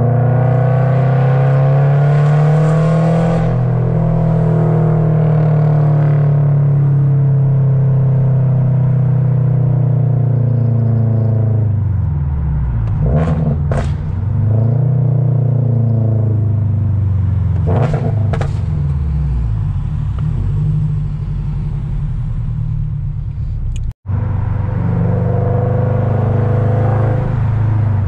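Straight-piped Toyota GR86's 2.4-litre flat-four exhaust, heard from inside the cabin while driving. The engine note climbs at the start, then holds steady, and twice in the middle it falls and climbs again as the car slows and pulls away.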